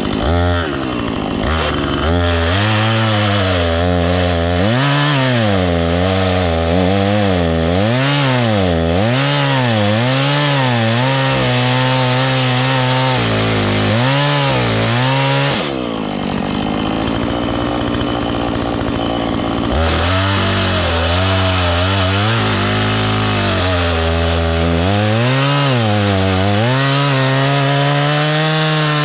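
Husqvarna two-stroke chainsaw cutting into a dead elm trunk with a dull chain, which the owner says can be heard. The engine pitch rises and falls over and over as the saw works in the cut, settling into a steadier, lower pitch for a few seconds a little past the middle.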